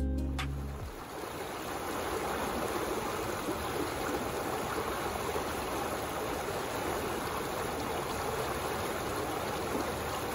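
Harpeth River water spilling over a low stone dam, a steady rushing and splashing. The tail of background music fades out in the first second.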